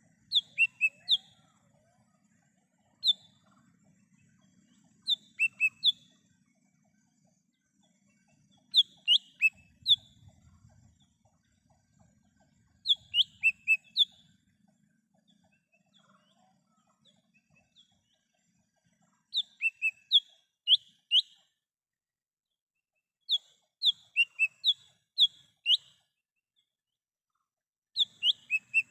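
Cucak hijau mini (small green leafbird) calling in the wild: bursts of two to six short, sharp, falling whistled notes, repeated every few seconds.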